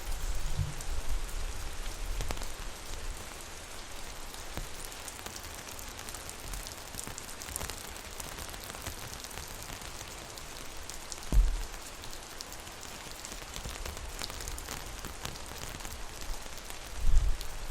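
Rain falling on an umbrella canopy, heard from underneath: a steady hiss of rain with many individual drops ticking on the fabric. A few low thuds break through, one loud one about eleven seconds in and several more near the end.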